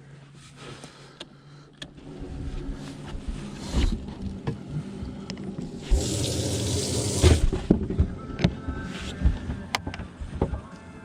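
Water running and splashing on a bass boat with a small electric motor whirring. The rush of water is loudest from about six to seven and a half seconds in, with scattered knocks and clunks throughout.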